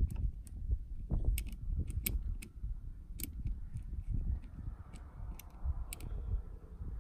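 Scattered light clicks and taps, about eight in all, as a hand presses and works at the cover of a car audio amplifier, over a steady low rumble.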